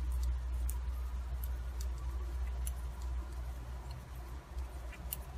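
Scattered light ticks of metal double-pointed knitting needles touching one another as knit stitches are worked in the round, over a steady low hum.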